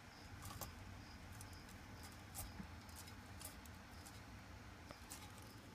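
Monitor lizard chewing a thawed baby chick: faint, irregular crunching clicks, about two a second, over a low hum.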